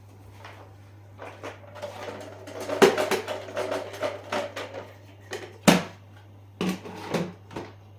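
Irregular clicks and knocks of hard plastic vacuum cleaner parts being handled and fitted together: the dust container being emptied and put back. A low steady hum runs underneath.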